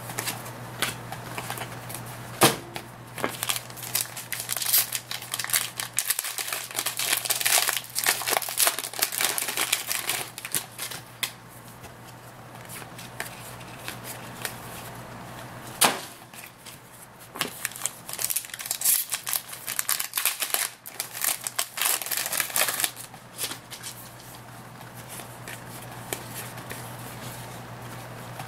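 Trading-card pack wrappers crinkling and a stack of cards being handled and flicked through, in two long spells of crackling. There is a sharp snap about two and a half seconds in and another near the middle.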